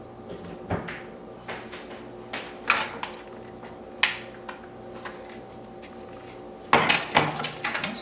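Power cord and plug being handled and plugged in: scattered plastic clicks and knocks, then a denser rattling clatter near the end, over a faint steady hum.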